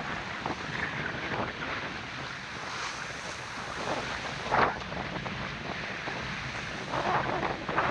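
Wind buffeting the microphone over the rush of waves along the hull of a sailboat under way, with one brief louder burst about halfway through.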